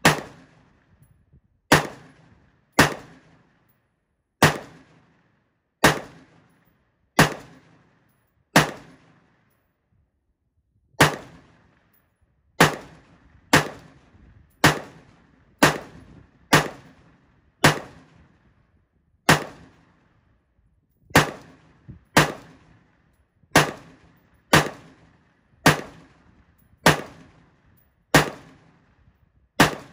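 LMT MRP external-piston rifle with a 14.5-inch barrel, a 5.56 mm carbine, fired unsuppressed in semi-automatic: single shots at roughly one a second, over twenty in all, with one pause of about two seconds about a third of the way through.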